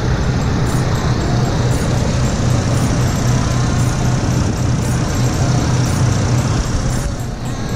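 2005 Chevrolet Colorado pickup engine idling with the hood open: a steady, even running hum.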